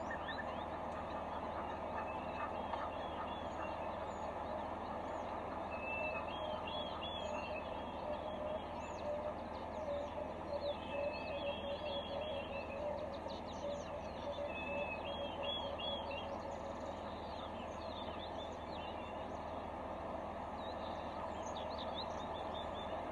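Birds calling: short repeated chirps in clusters over a steady background hiss.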